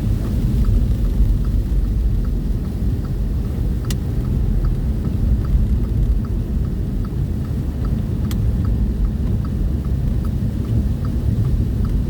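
Steady low rumble of a vehicle's engine and tyres heard from inside the cab while driving on a snowy road. A light regular ticking runs underneath at about two to three clicks a second, and there are two sharp single clicks, about four seconds apart.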